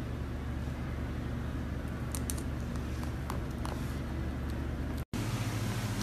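Steady low indoor hum with a few faint light clicks around the middle; the sound drops out briefly about five seconds in, then the hum carries on.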